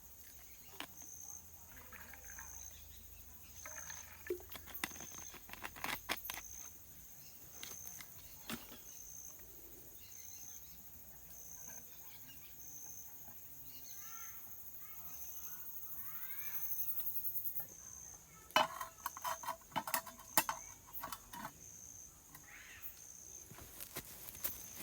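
Night insect, cricket-like, chirping in short high-pitched pulses about every second and a half over a steady outdoor hiss. Scattered clicks and knocks break in, with a loud cluster about three-quarters of the way through.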